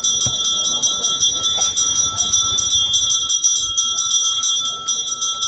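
Temple puja bell rung rapidly and continuously: a steady high ringing made of many quick, even strokes.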